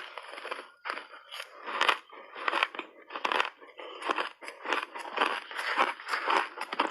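Refrozen shaved ice being crunched and chewed in the mouth, a steady run of crisp crunches about two a second.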